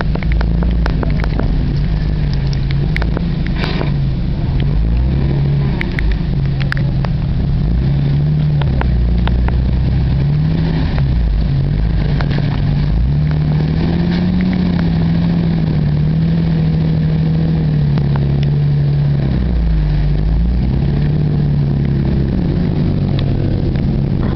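Jeep's engine revving up and down repeatedly as it drives through a deep mud pit, with a few sharp clicks during the first several seconds.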